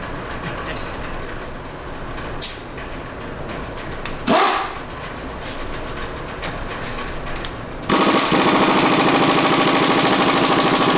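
Impact wrench hammering in one long continuous burst from about eight seconds in, trying to break loose a tight tie rod end nut. Before it, a few light knocks of tools being handled.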